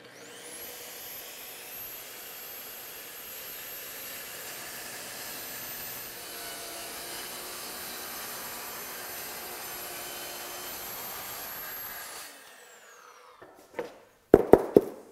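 DeWalt plunge-cut track saw starting up and running steadily with a high whine as it rips a sheet of plywood along its aluminium guide rail, then winding down about twelve seconds in. Near the end come a few sharp, loud wooden knocks as the cut-off strip of plywood is lifted and handled.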